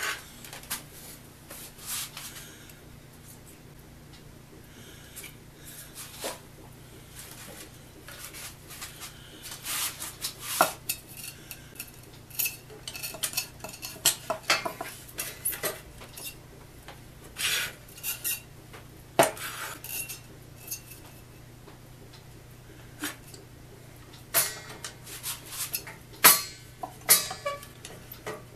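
Irregular clicks, clacks and knocks of a quick-grip bar clamp and a board being handled and clamped on a workbench, with a low steady hum underneath.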